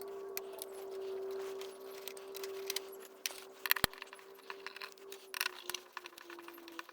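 Small scattered clicks and metallic clinks of a screwdriver and screws being handled while a CD radio's plastic casing is taken apart, with the sharpest click a little before four seconds in, over a faint steady hum.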